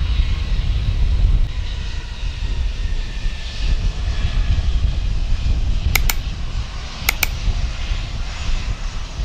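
An Airbus A320-216's CFM56 jet engines idle as the airliner taxis past, a steady low rumble with a faint high whine. Two quick pairs of sharp clicks come about six and seven seconds in.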